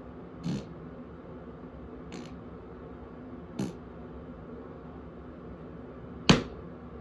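Four short, sharp clicks over a steady low hum, spaced irregularly, the fourth much louder than the rest.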